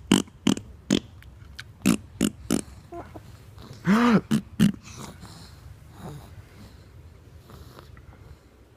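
Mouth 'farting' sounds, blown raspberries with the lips: a run of short sputtering bursts, one longer and voiced about four seconds in, then quiet after about five seconds.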